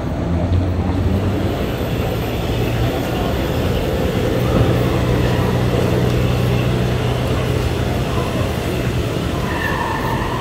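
A vehicle engine running steadily at a low idle, its pitch shifting slightly a few seconds in.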